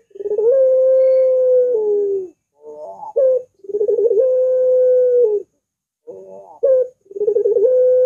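Barbary dove (puter) cooing: three long, drawn-out coos, each opening with a quaver and then held at one steady pitch, with a short note before the second and third.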